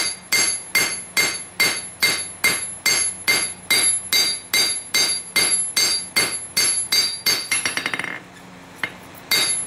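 Hand hammer striking hot stainless steel on an anvil in a steady rhythm of about two and a half blows a second, each blow ringing, as the knife blade is drawn out wider. Near the end come a quick run of light taps, a short pause with a single tap, and then the blows start again.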